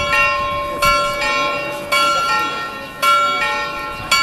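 Carillon bells of the Frauenkirche clock playing a slow tune. A fresh note is struck every half second to a second, and each keeps ringing under the next.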